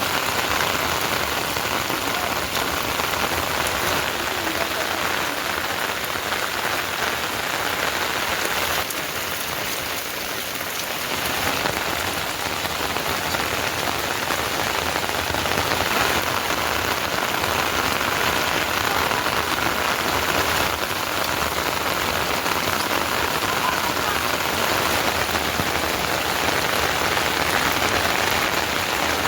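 Steady heavy rain falling and pattering on surfaces, a dense even hiss with no letup.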